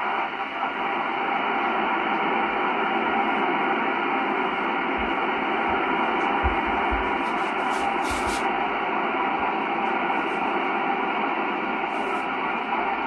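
Steady hiss of FM receiver noise from a Yaesu FT-847 tuned to an FM amateur radio satellite's downlink, with no clear station coming through.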